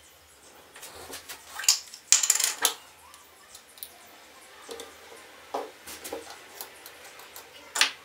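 Clicks, taps and scrapes of plastic faucet-cartridge parts, a plastic jar of petroleum jelly and a screwdriver being handled on a tabletop. The loudest part is a quick run of clicks and scrapes about two seconds in, and there is a sharp knock near the end.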